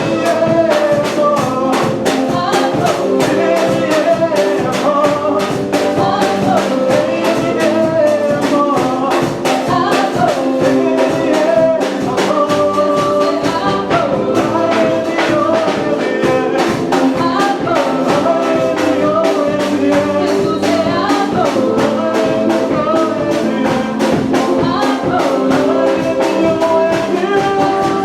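Band music with a fast, steady drum beat under a moving melody.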